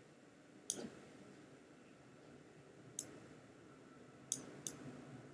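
Computer mouse clicking, four faint, sharp clicks at irregular intervals: one about a second in, one near the middle, and two close together near the end.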